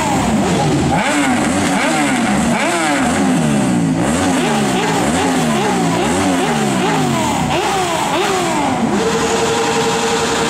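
Sports motorcycle engine revved over and over in quick blips, the pitch climbing and dropping about one and a half times a second. Near the end the blipping gives way to a steady, unchanging note.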